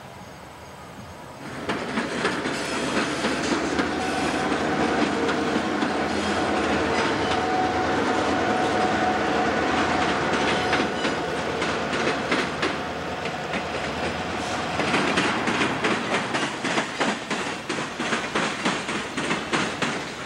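Norfolk Southern diesel freight locomotives passing close by with their engines running, loud from about a second and a half in after a quieter start. Freight cars follow, their wheels clicking in a quick, regular rhythm over the rail joints, most sharply in the last few seconds.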